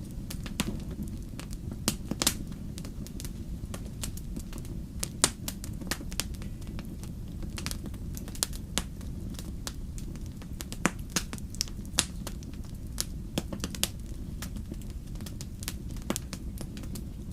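Wood campfire crackling, with irregular sharp pops and snaps over a steady low rumble. The loudest pop comes about five seconds in.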